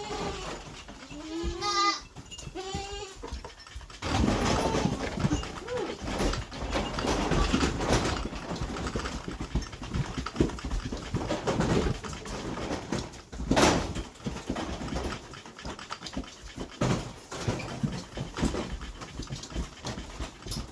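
A farm animal gives one short, wavering call about two seconds in, then a long stretch of rustling and clattering with a sharper knock midway.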